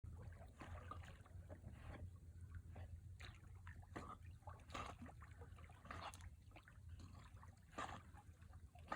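Faint, irregular water splashing and sloshing of a dog swimming and paddling in a lake, over a low steady rumble.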